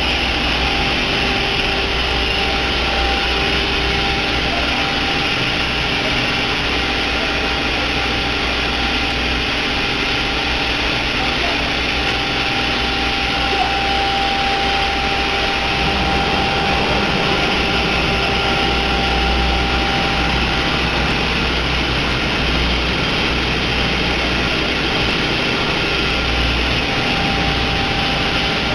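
Diamond wire saw running steadily as it cuts: a constant machine noise with a thin steady whine and a low hum that swells and fades now and then.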